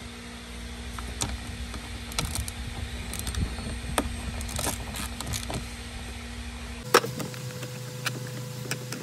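Scattered light clicks and knocks of dashboard parts and hand tools being worked, over a steady workshop hum. About seven seconds in a sharp click comes as the hum changes abruptly to a different, higher hum.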